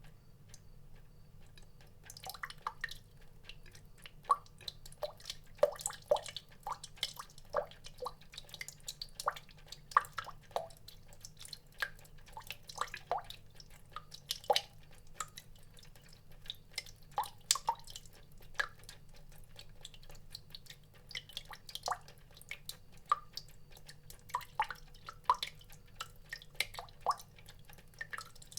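Water drops falling at an irregular pace, each a short plink with a brief pitched note, several a second, starting about two seconds in.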